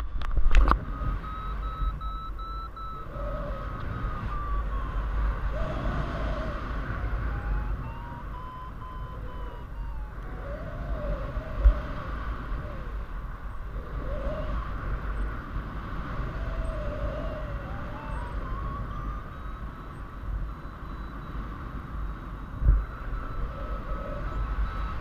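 Paragliding variometer beeping in quick chains, its pitch rising and falling in slow swings as the climb rate changes while circling in a thermal. Steady wind rush on the microphone underneath, with two brief thumps.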